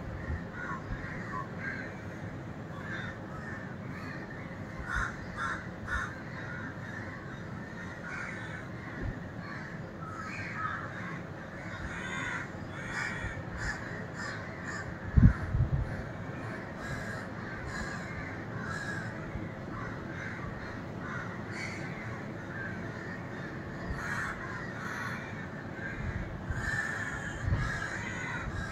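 Crows cawing over and over from a tree, many short caws overlapping throughout. There is a single dull thump about halfway through.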